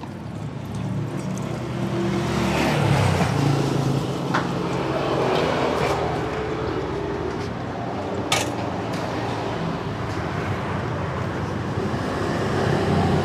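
A motorcycle engine running, its pitch shifting up and down unevenly, with a couple of sharp clicks.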